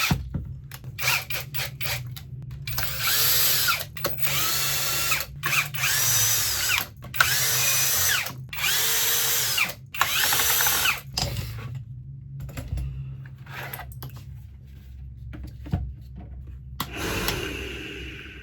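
Power drill-driver run in a series of trigger bursts, the motor whining up in pitch and winding down with each pull. Short bursts and clicks come first, then about five runs of about a second each, and one more burst near the end.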